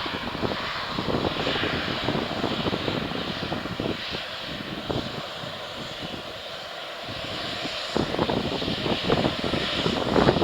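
Airliner engines roaring as a Lion Air plane comes in to land, easing a little midway and building again near the end, with gusty wind buffeting the microphone.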